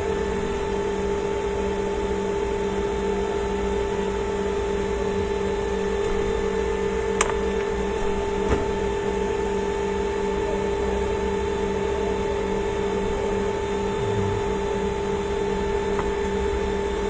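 Steady electrical or machine hum with several fixed tones, unchanging throughout, with two faint clicks near the middle.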